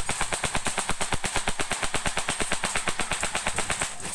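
M4-style rifle firing on full auto in one long unbroken burst, about a dozen shots a second, stopping just before the end.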